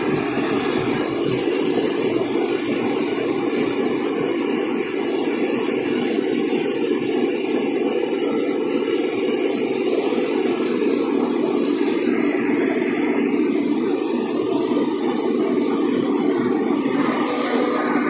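Diesel engines of a Komatsu hydraulic excavator and a crawler bulldozer running steadily.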